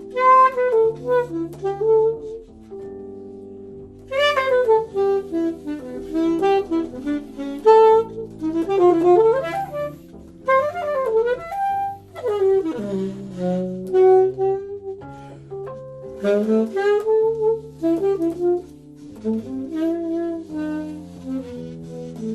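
Improvised jazz duet: a saxophone plays melodic phrases and quick runs, answered and overlapped by a second line of long held lower notes.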